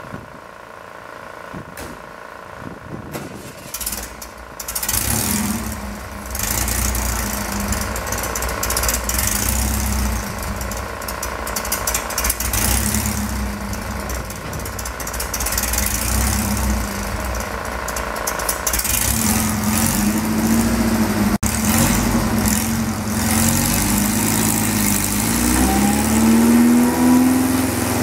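Supercharged air-cooled 1600 VW flat-four engine with an AMR500 supercharger running on a chassis dyno. It is low at first, comes up about five seconds in and runs with wavering revs, then gets louder, with quick rises and falls in revs near the end.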